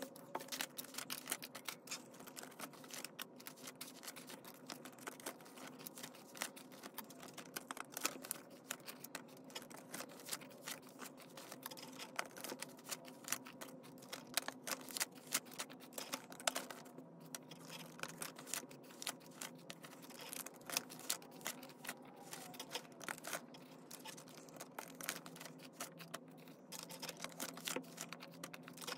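Paper banknotes rustling and clear plastic binder pockets crinkling as cash is pulled out and flipped through by hand: a dense run of faint, crisp rustles and light clicks.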